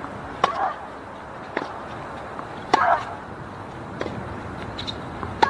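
Tennis rally: a racket hits the ball about every second and a quarter, five hits in all, and every other shot comes with a short grunt from the hitting player.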